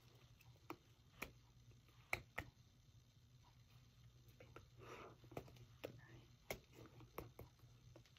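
Near silence over a low steady hum, broken by scattered faint clicks and taps from signing hands and sleeves.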